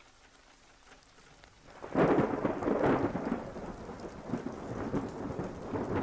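Thunderclap about two seconds in, rumbling on and slowly fading over a steady hiss of rain.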